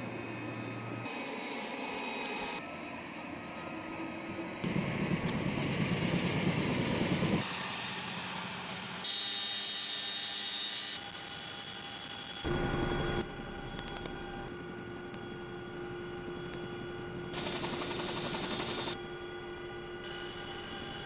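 CH-47 Chinook helicopter's rotors and twin turbine engines running, heard in a string of short clips that change abruptly every few seconds. A steady turbine whine carries through the later part.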